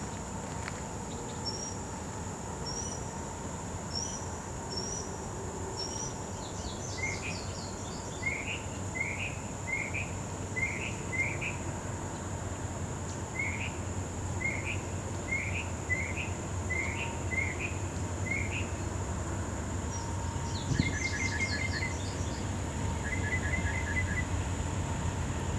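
Songbirds calling: a few high thin notes, then a long series of short rising chirps, then quick trills near the end. Under them runs a steady high-pitched insect drone, and a low rumble slowly builds beneath.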